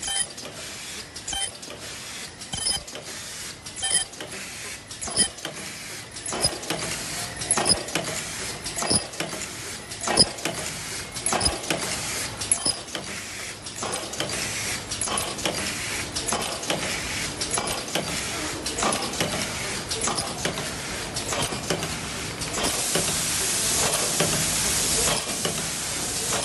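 Automatic double-station headband KN95 mask-making machines running: a steady mechanical clatter with regular sharp clicks a little more than a second apart, over a hiss that grows louder near the end.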